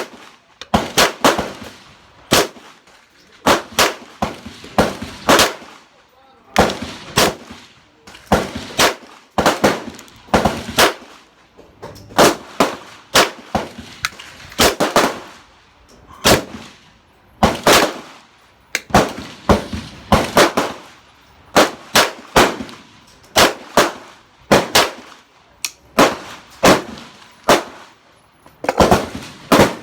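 Kriss Vector 9mm pistol with a compensator fired semi-automatically in quick strings of two to four shots, with short pauses between strings, again and again: a new gun being broken in.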